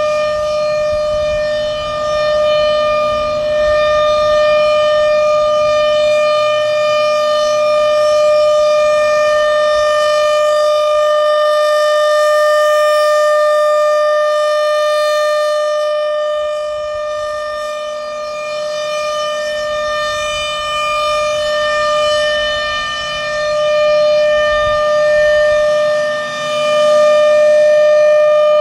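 Federal Signal Thunderbolt 1000 supercharged outdoor warning siren sounding its steady alert tone: one held pitch with strong overtones. It swells and fades slowly as the rotating horn sweeps around.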